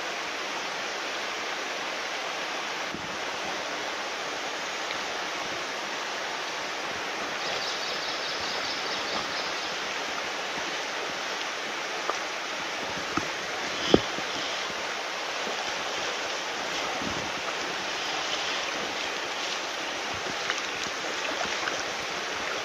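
Shallow rocky mountain stream running over stones, a steady rush of water. A few faint ticks sit over it, with one sharper click about fourteen seconds in.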